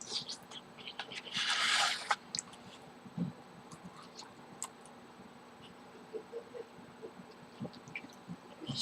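Close-miked eating sounds: a person chewing with small wet mouth clicks, with one louder noisy bite or mouthful noise lasting just under a second about one and a half seconds in.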